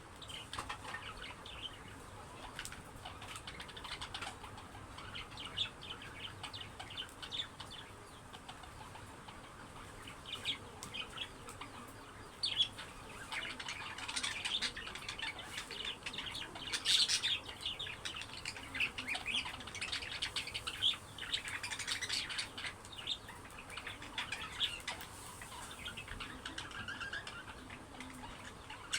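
Budgerigars chattering and chirping: a continuous flurry of short, quick calls, busiest in the middle.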